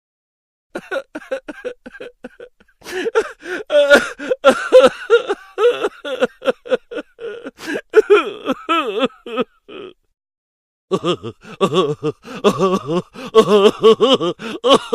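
Comic vocal sound-effect clips: a person's voice in quick, pitch-bending gasps and groans. Two clips are separated by about a second of silence.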